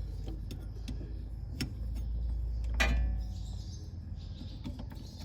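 A few sharp metallic clicks and clinks, the loudest a little under halfway through, from an end wrench and a hydraulic hose's JIC flare fitting being handled, over a steady low rumble.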